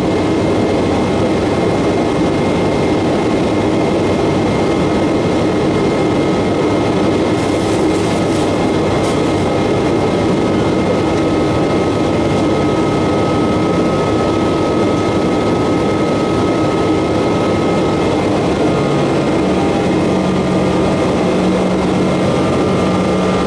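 Boeing 777-200ER's Rolls-Royce Trent 892 jet engines running steadily, a constant loud rush with a faint whine on top. Some low hum shifts and joins about three-quarters of the way through.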